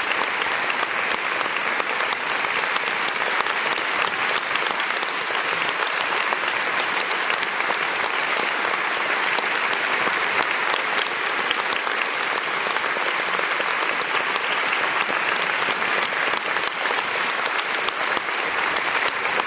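Large theatre audience applauding: dense, steady clapping that carries on without a break.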